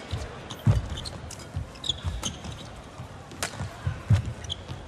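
Badminton rally: sharp racket strikes on the shuttlecock, footfalls thudding on the court, and brief squeaks of court shoes.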